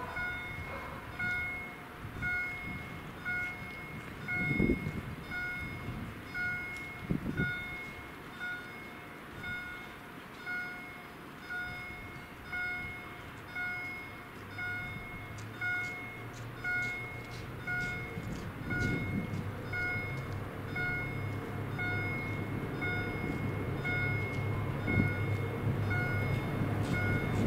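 Level-crossing electronic warning sounders (GZT 30) ringing a pitched tone about once a second while the barriers are down. From about halfway, the low engine hum of an approaching train grows steadily louder beneath it.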